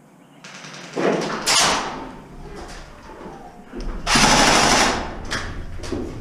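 Airsoft electric rifle firing in bursts, with short bursts about a second in and a longer, loud burst of about a second around four seconds in.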